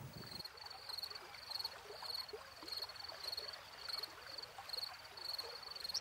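A short, high-pitched chirp repeating steadily, about three times a second, over a faint outdoor background.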